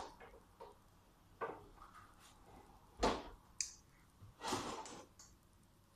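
Light knocks and clicks of kitchen things being handled on a counter, the sharpest about three seconds in, with a short rustling noise around four and a half seconds in.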